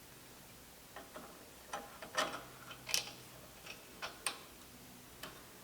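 Irregular light metallic clicks and taps as a washer and 5/16-inch button head bolt are handled and started into the vise base.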